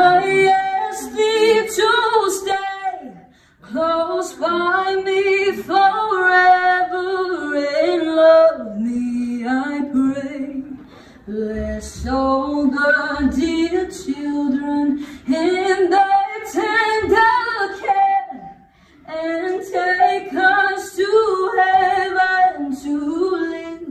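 A woman singing a Christmas song unaccompanied, in sung phrases broken by short pauses about every seven or eight seconds.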